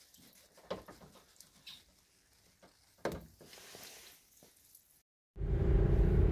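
Faint, scattered small ticks and rustles for about five seconds. Then, after a short break, steady engine and road noise comes in, heard from inside the cabin of a moving Opel Corsa C.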